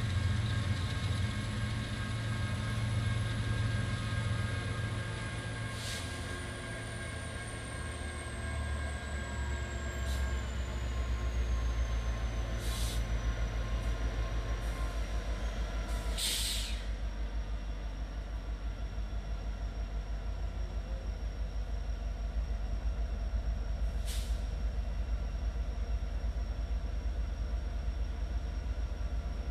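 Two Kansas City Southern diesel-electric locomotives rolling slowly toward the camera at the head of a freight train. Their engines make a low, steady drone that drops in pitch about a third of the way in, under a thin high whine that falls in pitch over the first half and then holds. A few short hisses break in, the longest a little past the middle.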